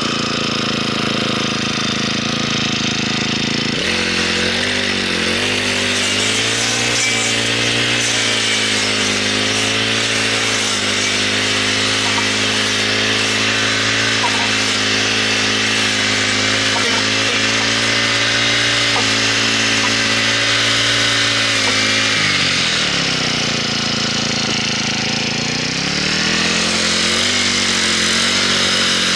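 Small engine running steadily at high speed, slowing down about twenty-two seconds in and speeding back up a few seconds later.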